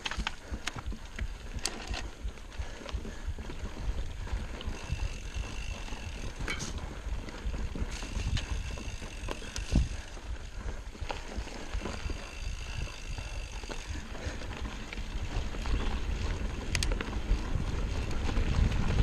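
A mountain bike ridden fast over a dirt forest trail, heard from a camera on the rider: a low rumble of wind buffeting and tyres on dirt, with scattered knocks and rattles as the bike goes over bumps. It grows louder over the last few seconds.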